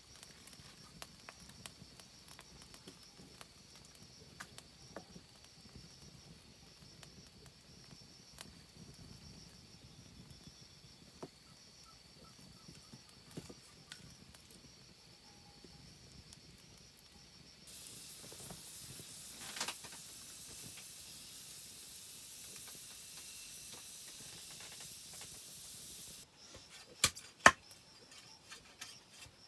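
Wood fire under bamboo cooking tubes, crackling faintly with scattered small pops. Just past halfway a steady hiss sets in, then stops suddenly. Near the end come a few loud, sharp knocks of a machete chopping a bamboo pole.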